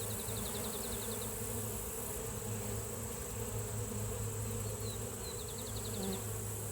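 Honeybees in flight giving a steady low buzz. A bird sings a short, fast trill right at the start and again about five seconds in.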